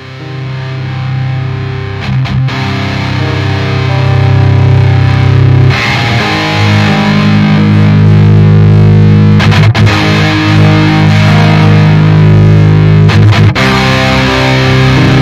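Outro music: a distorted electric guitar rock track that builds in loudness over the first few seconds and then plays steadily.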